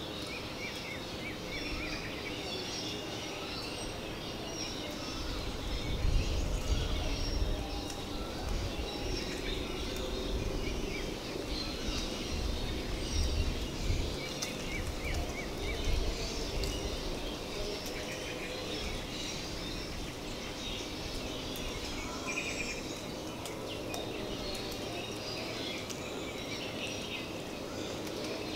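Outdoor woodland ambience: many small birds chirping over a steady background hiss, with a low rumble that swells from about six seconds in and fades by about sixteen seconds.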